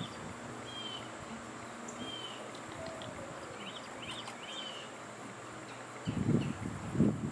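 Outdoor ambience: small birds chirping in short clusters of quick notes over a steady, faint high insect drone. About six seconds in, louder low-pitched noises start.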